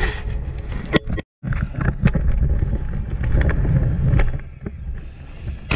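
A trail motorcycle riding over rough, steep ground. Engine rumble mixes with wind buffeting the microphone, and scattered knocks and rattles come from the bike over the terrain. The sound cuts out completely for a moment about a second in.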